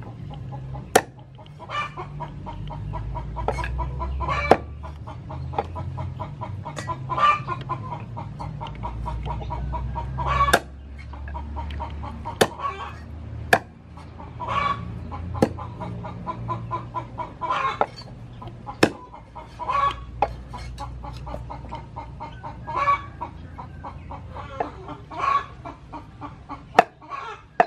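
A cleaver chopping chicken on a wooden cutting board, single sharp chops every one to three seconds. Hens cluck on and off throughout.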